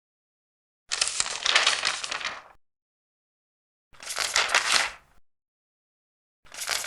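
Large paper pages being turned one at a time, each turn a rustling sweep of about a second or more. There are three turns: one about a second in, one around four seconds, and one starting near the end, with silence between them.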